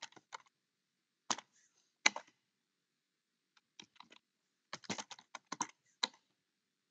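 Computer keyboard typing: a few scattered keystrokes in the first couple of seconds, then a quicker run of key clicks from about four to six seconds in, with short pauses between words.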